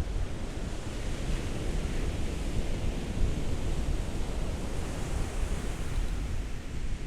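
Ocean surf washing on a shore, a continuous rush with a low rumble underneath, the hiss swelling twice as waves come in.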